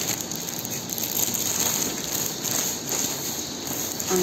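Clear plastic wrapping on a new foam mattress crinkling and rustling as it is handled and pulled back, a continuous crackling rustle.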